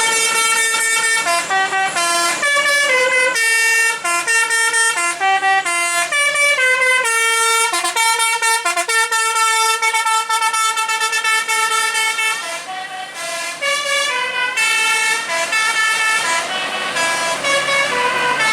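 Indonesian bus 'telolet' musical air horn playing a tune: a run of short notes stepping up and down in pitch, with some notes held longer, and a brief softer stretch about thirteen seconds in.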